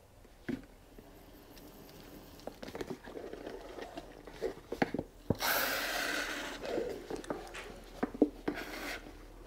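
A plastic squeeze bottle of toilet bowl cleaner being emptied into a rusty steel fuel tank through its filler neck. Small crackles of the plastic and squishy glugs of the liquid, with a rushing hiss of about a second near the middle.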